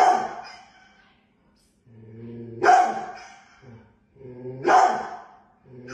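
Large dog growling low and breaking into a bark, three times about two seconds apart, with another growl starting at the end: the dog warning off the cat it is facing.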